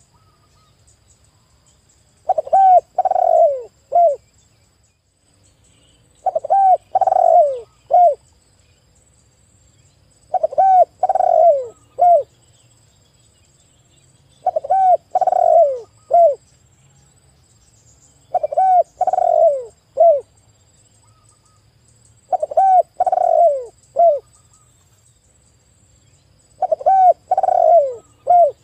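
Spotted dove cooing: seven phrases about four seconds apart. Each is a short note, a longer rolling coo, and a short closing note.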